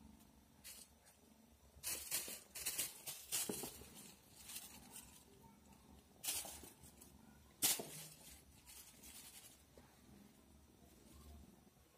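Quiet scuffing and rustling from a kitten jumping and landing on a laminate floor, in several short bursts, the sharpest a little past the middle.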